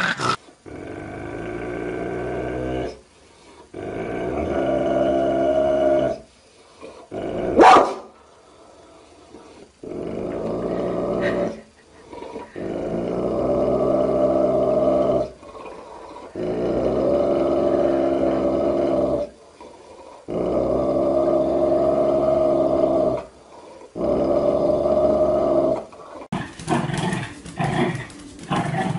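A dog growling in long, drawn-out growls of two to three seconds each, with short pauses between them. About eight seconds in there is one brief, loud sound. Near the end the growling gives way to shorter, choppier dog sounds.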